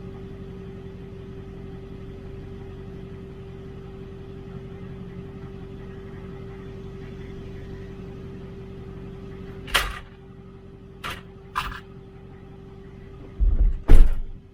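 Vehicle engine idling steadily with a constant hum. Near the end come a sharp knock, two lighter clicks and then a burst of heavy thumps, the loudest sounds here.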